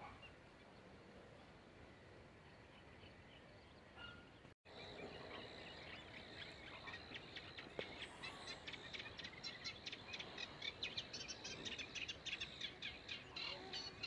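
Faint outdoor background noise, then after a short break about four and a half seconds in, many small birds chirping in quick succession, growing busier towards the end over a faint steady high tone.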